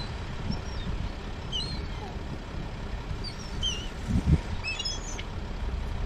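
A flock of gulls giving short, high, curving calls again and again as they crowd in to feed. Wind rumbles on the microphone underneath, gusting loudest about four seconds in.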